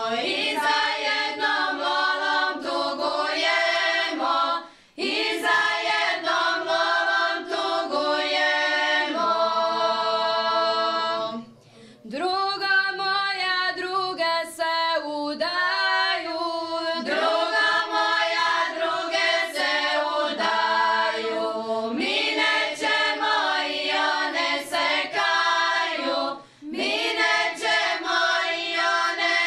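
A cappella women's folk singing group of a Šokac ensemble singing in several parts, long held notes in drawn-out phrases. Short breaks for breath come about five, twelve and twenty-six seconds in.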